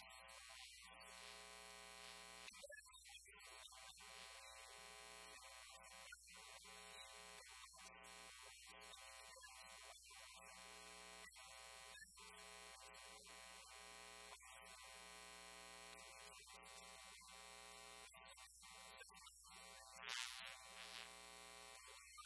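Near silence apart from a steady electrical hum and buzz with many overtones, with a brief faint rustle near the end.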